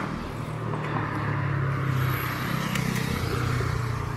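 Road traffic: a motor vehicle's engine running close by, with a steady low engine note that swells slightly midway and eases off near the end.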